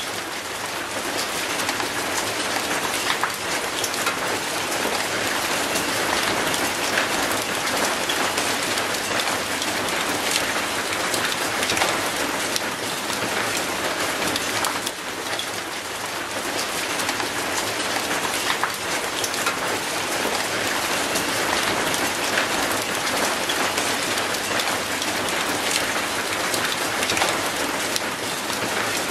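Steady rain splashing on mossy paving and an old rusty gate: a dense, even hiss full of many individual drop hits.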